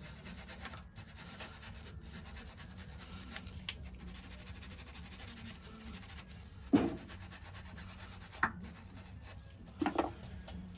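Hand tools scraping and rubbing on the metal of a vintage stationary engine's gear train while working at a stuck cam gear pin, with three sharp knocks in the second half.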